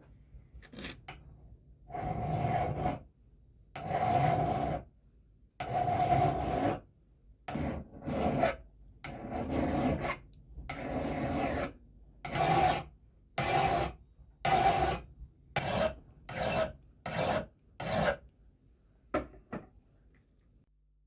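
Hand file rasping back and forth across the steel of the wrench in repeated strokes, about eighteen of them, longer at first and then shorter and quicker.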